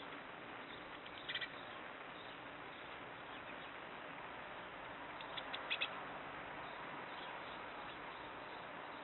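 Eurasian blue tit giving short high call notes, a quick run of three about a second in and a cluster of short notes just past halfway, over a steady hiss.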